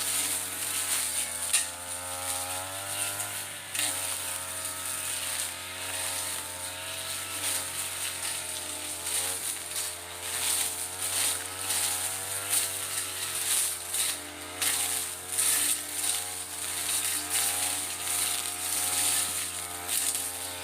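Mitsubishi TU33 two-stroke brush cutter engine running under load, its pitch rising and falling as it cuts through ferns and grass.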